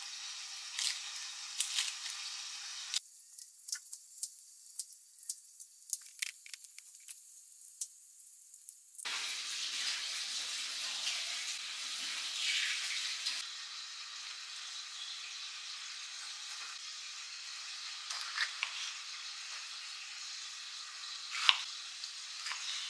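Kitchen knife working on a wooden cutting board, peeling an onion and slicing tomatoes: scattered light clicks and taps over a steady hiss, with the sharpest knock near the end.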